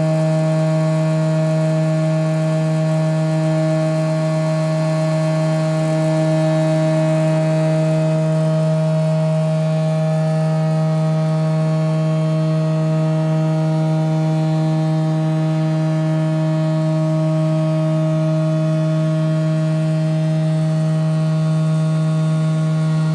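CT scanner running with a steady, even hum made of several pitched tones, holding the same pitch throughout with no slowing or braking sound.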